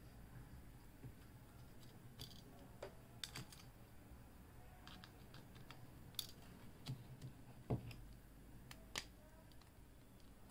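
Faint, scattered small clicks and taps of fingers handling a smartphone motherboard as it is pressed back into the phone's frame, with quiet room tone between them.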